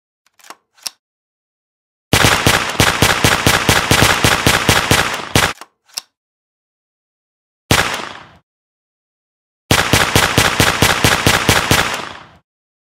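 Automatic gunfire sound effect: long bursts of rapid shots, then a single shot, a short burst, and a final burst of nearly three seconds that fades out.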